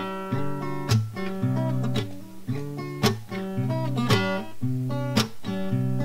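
Acoustic guitar strummed in a steady rhythm, a strong accented strum about once a second with lighter strums and ringing chords between.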